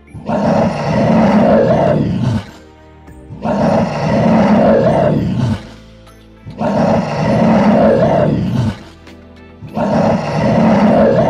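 A bear roaring four times, each roar about two seconds long with about a second between them, over quiet background music.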